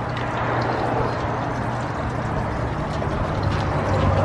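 Road traffic: a motor vehicle's low engine hum over a hiss of road noise, growing louder near the end.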